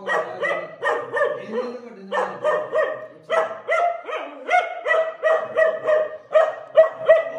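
A young German Shepherd puppy, about three months old, barking over and over in short, high yaps, about three a second.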